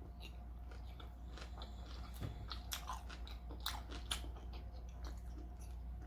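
Close-up chewing of a chicken taco, with many small, irregular crunches.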